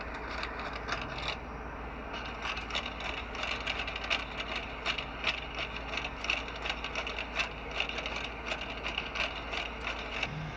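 Boston Dynamics Spot robot dog walking over dry grassy ground: quick, irregular mechanical clicks and ticks, several a second, over a steady hiss, with a brief pause about a second and a half in.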